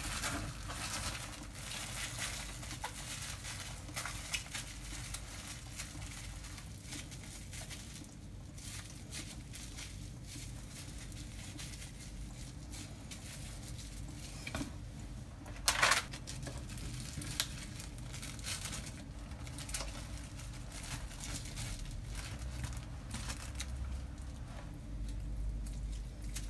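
Kitchen handling sounds: light crinkling and rustling with scattered small clicks, and a brief, sharper clatter about sixteen seconds in.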